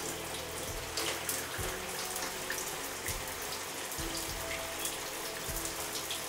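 Shower spray running in a steady hiss, with small irregular splashes and wet squelches as shampoo lather is worked through the hair.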